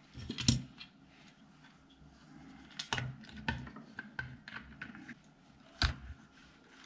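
Plastic housing halves of a cordless screwdriver clicking and knocking together as they are handled and pressed shut over the battery pack. A few sharp clicks, loudest about half a second in and near the end, with quieter ticks between.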